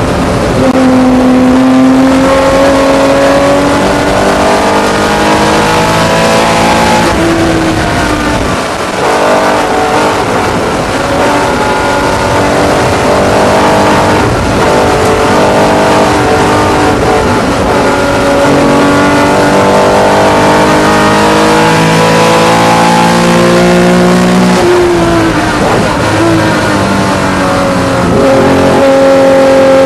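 Porsche 911 ST's air-cooled 2.5-litre flat-six racing engine running hard under race conditions. The engine note climbs and drops repeatedly through gear changes and lifts, with a dip about eight seconds in and a sharp drop around twenty-five seconds.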